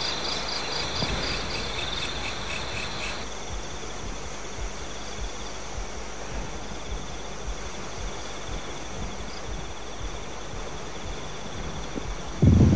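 Crickets chirping at night: a quick pulsed chirp over the first three seconds, then a fainter steady trill. A loud low rumble cuts in right at the end.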